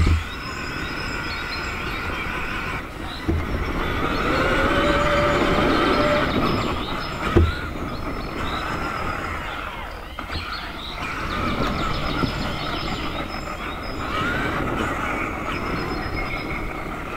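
Traxxas Summit RC truck's electric motor and gear train whining, the pitch rising and falling as it drives off-road, with a few sharp knocks.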